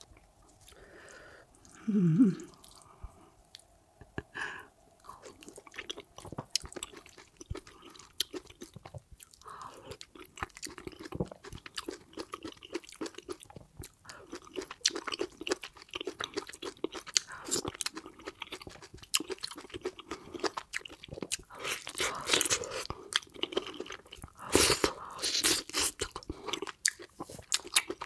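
Close-miked eating sounds of a person chewing fufu and egusi soup: wet chewing and mouth smacks, with louder crunchy bites near the end. A short, low hummed vocal sound comes about two seconds in.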